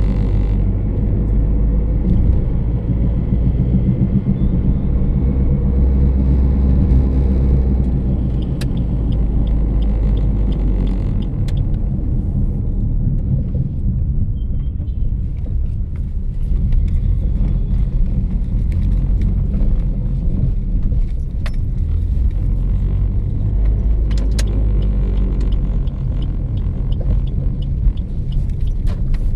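Loud, steady low humming with several pitched lines, and faint high chirping of crickets now and then, most clearly about a third of the way in.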